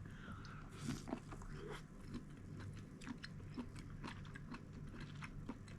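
A person chewing a mouthful of food close to the microphone, with many small irregular crunchy clicks, over a low steady hum.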